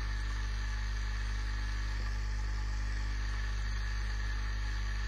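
Home-built Muller-type motor generator (RomeroUK replica) spinning at steady speed: a constant low hum with a thin high tone above it. It is running under load, feeding current through a load resistor back to its battery.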